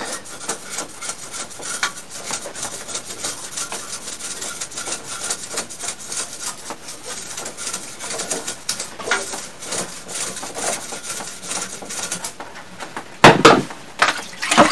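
Steady, quick scratchy hand-scrubbing of the soaped blower fan inside a split air conditioner's indoor unit during a wash. Near the end it is broken by two short, louder sounds.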